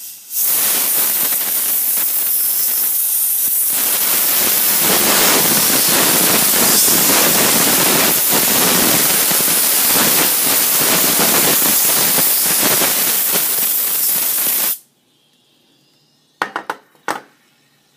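Ultra Duster can of compressed-air duster spraying through its red straw nozzle in one long, loud, steady hiss, blowing rubbing alcohol off a wet iPhone 5 logic board. The hiss stops suddenly about fifteen seconds in, and a few short clicks follow near the end.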